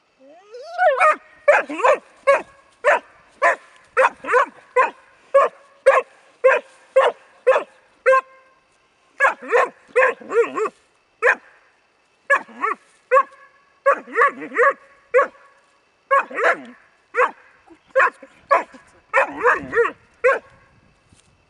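Bracco Italiano puppy barking over and over, about two to three short barks a second, in bouts broken by brief pauses; the barking stops shortly before the end.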